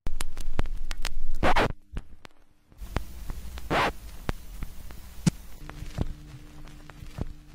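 Intro sound effects under an animated title: scattered sharp clicks and crackles, two whooshing swells of noise about one and a half and four seconds in, and a low steady hum that comes in a little past halfway.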